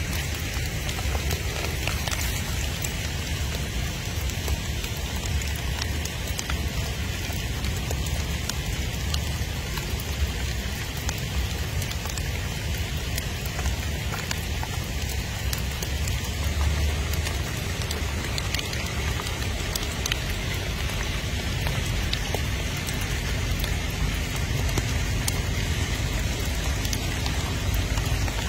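Light rain pattering steadily on wet ground, with a low rumble underneath.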